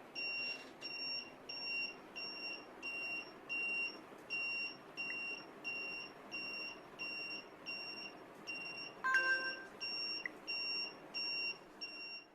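Alarm buzzer on an Arduino/ESP8266 security alarm beeping steadily, a little under two short high-pitched beeps a second. About nine seconds in there is a click and a brief lower tone.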